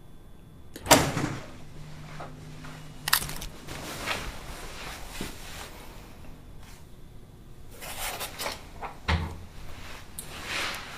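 A handful of separate knocks and thuds, the loudest about a second in, then a clipboard being handled with its paper rustling near the end.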